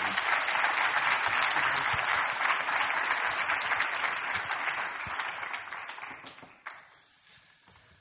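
Audience applauding, many hands clapping at once, dying away near the end.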